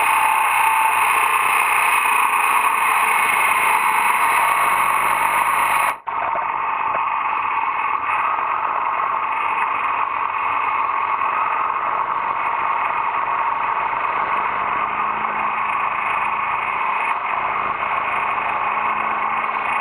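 Steady wind and road noise of a motorcycle at speed, muffled through a bike-mounted action camera's housing, with no clear engine note. About six seconds in it drops out for an instant and comes back duller.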